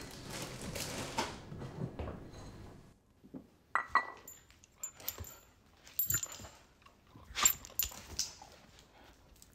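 A dog on a tiled floor: a scatter of sharp clicks from its claws on the tiles, with short dog sounds among them.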